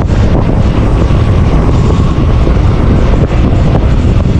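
Wind rushing over the microphone of a handlebar-mounted camera on a moving bicycle: a loud, steady rumble.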